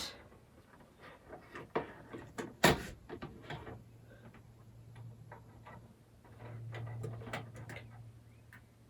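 Small clicks and taps of hands handling an exposed phone circuit board and its ribbon connectors, with one sharper knock just under three seconds in. A faint low hum runs under it from about three seconds on, swelling for a while in the second half.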